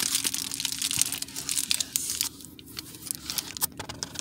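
Crackling, rustling handling noise of a phone being moved about in the hand, close to its microphone, over a faint steady hum of small fans running in the car.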